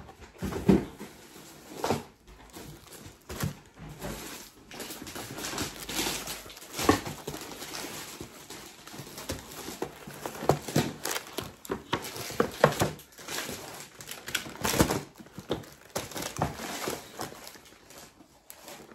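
Grocery packaging being handled: plastic wrappers crinkling and cardboard boxes and packs knocking onto a wooden counter, in irregular rustles and sharp knocks.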